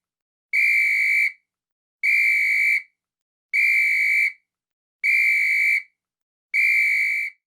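A whistle blown in five short blasts, each a little under a second long and about a second and a half apart, on one steady shrill pitch.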